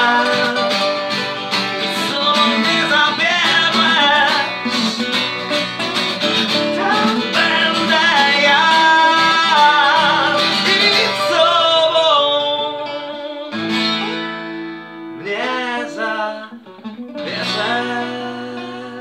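Two acoustic guitars, one nylon-string and one steel-string, strummed together while a man sings. The playing thins out after about twelve seconds into a few last ringing chords as the song winds down.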